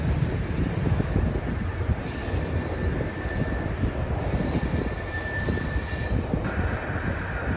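Freight cars rolling past with a steady rumble of steel wheels on rail. A thin, high wheel squeal sets in about two seconds in and turns louder and broader near the end.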